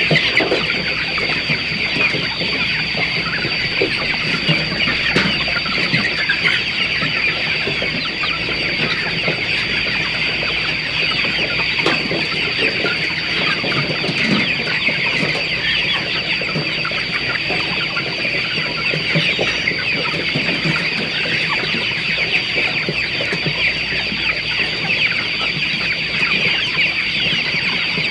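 A large flock of chickens calling continuously, a dense chorus of many overlapping short, high calls with no pause.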